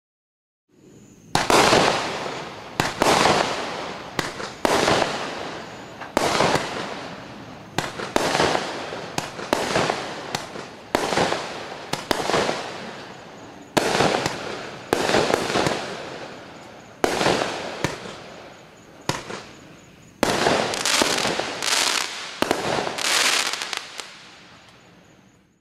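Consumer firework cake (Klasek Skřítkové) firing its shots in a steady sequence, about one every second, each a sharp bang with a crackling tail as the stars burst.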